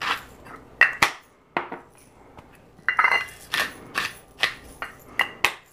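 Hand salt and pepper grinders twisted over a bowl, a quick grinding stroke with each turn: a short run of strokes, a pause of about two seconds, then a longer run.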